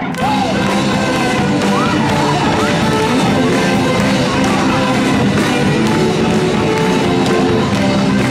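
Live band playing, a saxophone carrying the melody over electric guitar.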